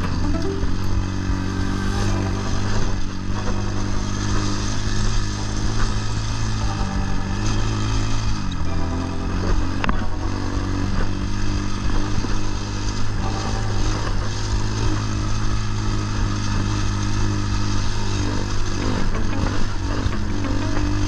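Templar 250 motorcycle engine running while riding, its pitch dipping about eight seconds in and then climbing back up.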